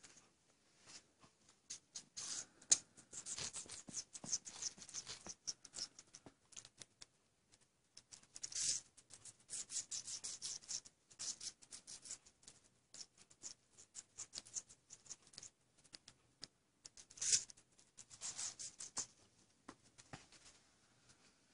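Rose-ringed parakeet biting and crunching a slice of apple, heard as bursts of fast crisp clicks with short pauses between.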